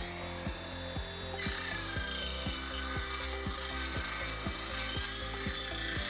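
Drop saw running and cutting through a length of door dam threshold seal. The whine swells about a second and a half in, then holds steady through the cut.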